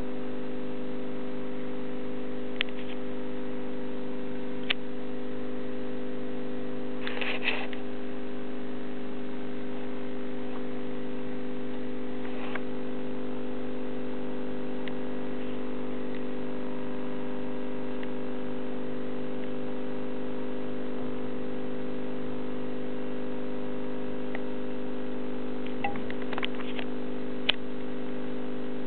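Steady electrical hum that does not change, with a few faint clicks and taps here and there.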